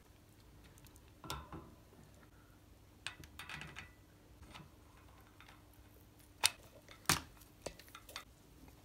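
Small steel bicycle hub parts being handled: scattered clinks and taps of metal on metal as the hub and sprocket are picked up and fitted together, the two sharpest knocks about six and a half and seven seconds in.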